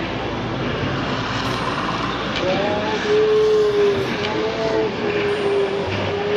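Steady rush of a fast, turbulent mountain river. About two and a half seconds in, a slow run of long held notes joins it and stands out above the water.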